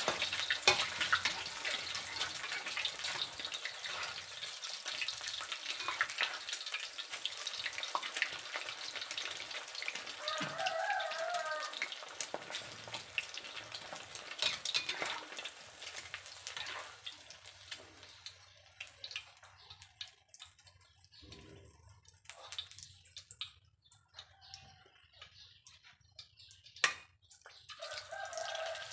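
Hot oil sizzling in a steel wok as food fries, with scattered clicks and scrapes of a metal spatula against the pan. The sizzle dies down over the second half, then flares up again near the end as more food is poured into the oil.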